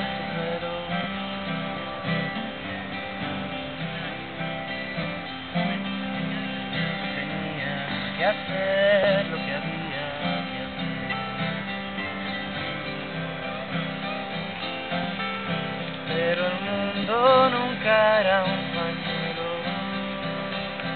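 Acoustic guitar strummed steadily, playing a song's chord accompaniment between sung lines.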